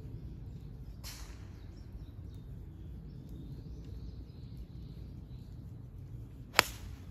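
A golf club striking the ball: one sharp, loud crack about six and a half seconds in, after a short swish about a second in, over steady outdoor background.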